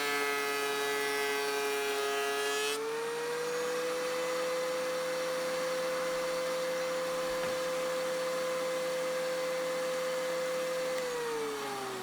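Thickness planer's electric motor running with a steady high whine, stepping up slightly in pitch about three seconds in. Near the end the whine falls in pitch as the motor spins down.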